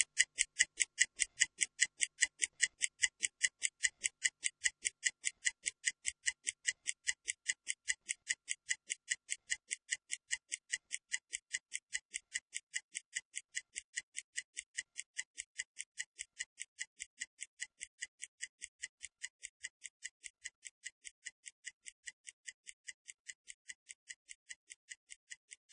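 Stopwatch ticking sound effect timing a 30-second rest period: short, high-pitched, evenly spaced ticks, about three a second, that slowly fade.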